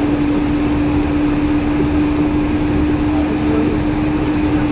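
Yurikamome 7300-series rubber-tyred automated guideway train running between stations, heard from inside the car: a steady hum at one unchanging pitch over a low rumble from the tyres and guideway.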